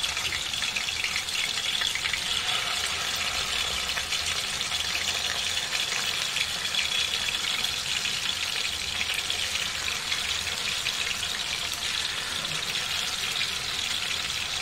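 Hot oil sizzling and crackling steadily in a pan as kofta balls deep-fry.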